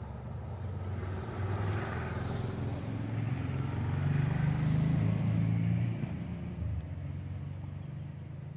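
A motor vehicle's engine: a low hum that swells to its loudest about halfway through and then fades away.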